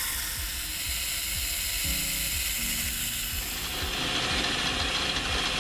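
Machine spindle running as a small drill bit bores a pilot hole into the squared end of a metal arbor held in a collet block, with a steady mechanical whir and a faint regular ticking.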